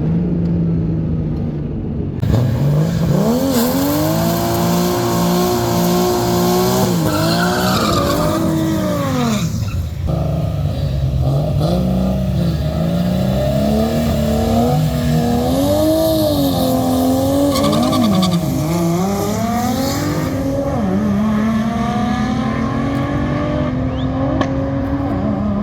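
Turbocharged Nissan RB30 straight-six in a VN Commodore revving hard on a drag strip, with tyre squeal. The revs climb sharply about two seconds in, hold high and drop near the ten-second mark, then rise and fall several times.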